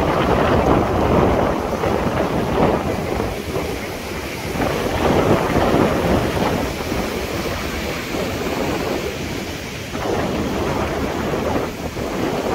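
Strong sea wind buffeting the microphone over surf breaking and washing against rocks, a loud rushing noise that swells and eases in irregular surges.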